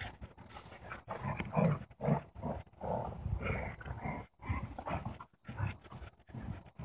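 Two dogs play-fighting, a German Shepherd and a white long-haired dog, with irregular bursts of play-growling and scuffling that are loudest about one and a half to two and a half seconds in.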